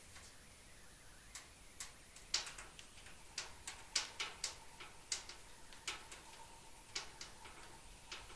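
A series of about a dozen sharp, irregularly spaced clicks and ticks, starting about a second and a half in, over a faint hiss.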